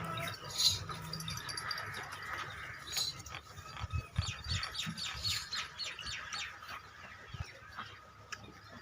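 Birds chirping: many short, high calls repeating throughout, with a couple of louder chirps about half a second in and around three seconds.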